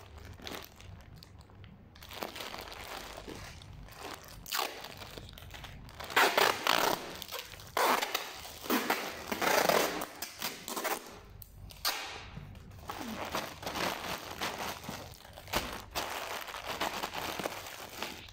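Plastic parcel bag crinkling as it is turned and handled, with packing tape pulled off its roll and wrapped around the parcel, in irregular rasping, rustling bursts that are loudest in the middle.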